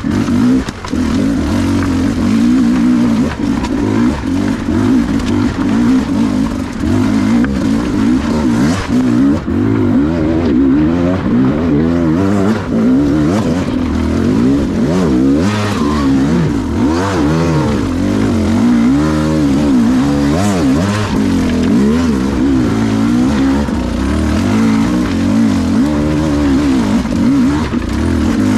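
Enduro motorcycle engine being ridden off-road, revving up and down over and over with the throttle, its pitch rising and falling every second or so.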